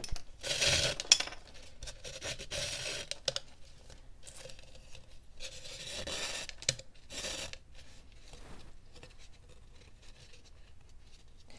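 Calf leather lace being drawn through a drilled hole in a dried gourd's rim: rasping rubs of the lace sliding against the hard shell, with hands handling the gourd, in several irregular short bursts.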